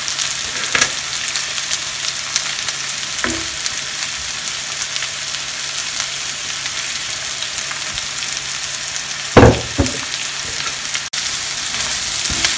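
Freshly added chopped onions sizzling in hot oil in a non-stick pan with green chillies and ginger: a steady frying hiss. A few short knocks against the pan cut in, the loudest about nine seconds in.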